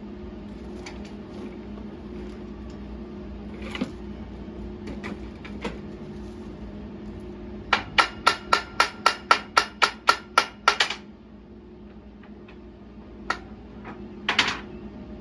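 A hammer striking steel in a quick, even run of about fourteen ringing blows, roughly four a second, with a few single metal knocks before and after. A steady hum runs underneath.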